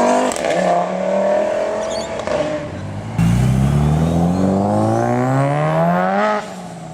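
Performance car engines accelerating hard: one revs up and shifts gear just after the start. About three seconds in a louder one starts abruptly and climbs steadily in pitch, then drops off near the end.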